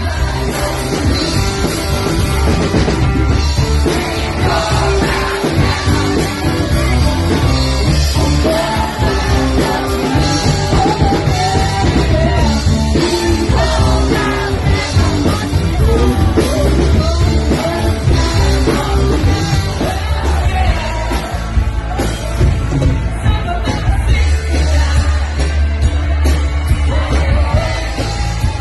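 Live band playing rock music with singing, a heavy bass underneath.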